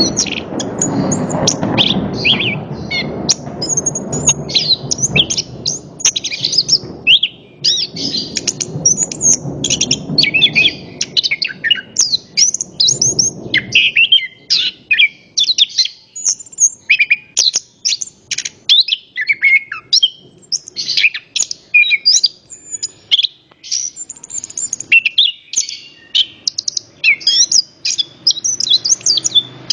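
Chestnut-capped thrush (anis kembang) in full song: a long, fast, unbroken run of varied whistles, trills and chirps. A low background rumble sits under the song for about the first half.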